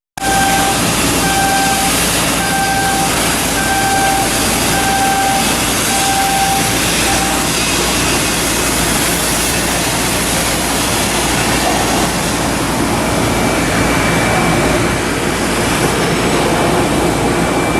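Loud, steady shipyard machinery noise with a repeating electronic warning beep about once a second for the first several seconds, like a crane's travel alarm while a hull block is moved. A steady high whine joins in about two-thirds of the way through.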